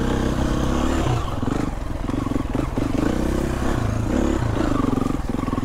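Husqvarna FE 350 enduro motorcycle's four-stroke single-cylinder engine running under way, revving up and dropping back several times as the throttle is opened and closed.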